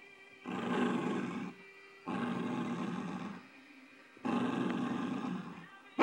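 Dachshund growling in play, three long growls of a second or more each with short pauses between.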